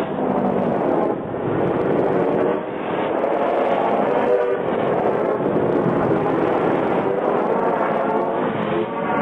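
Looped sound effect: a continuous, dense chord of sustained horn-like tones over a noisy rumble, in dull, low-fidelity tape sound.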